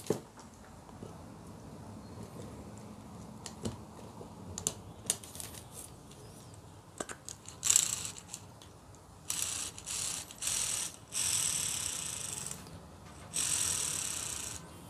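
Hyundai Xcent power-steering motor's armature being fitted into its end housing with the new carbon-brush plate: small metallic clicks and a knock, then several short scraping bursts as the commutator is worked past the brushes.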